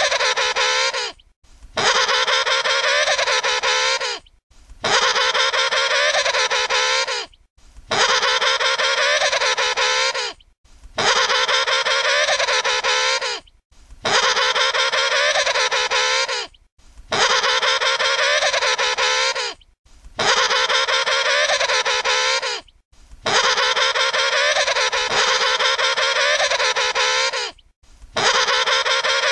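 Emperor penguin trumpeting: one long, wavering call of about three seconds, repeated about ten times with short breaks between, each call dipping and rising in pitch in the same way.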